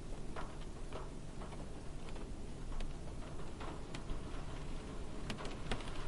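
Light rain on a car's roof and windows heard from inside the cabin: a steady low hush with scattered, irregular taps of single drops, a few sharper ones near the end.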